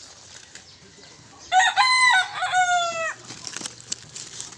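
A rooster crowing once, a cock-a-doodle-doo of about a second and a half that rises, holds, then falls away, with a few faint knocks after it.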